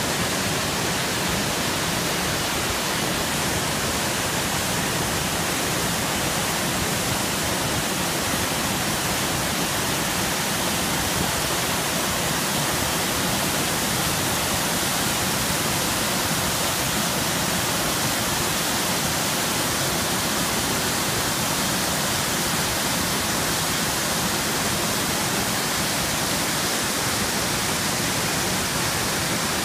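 Waterfall on the Sand River, whitewater cascading over rock ledges: a steady rush of water.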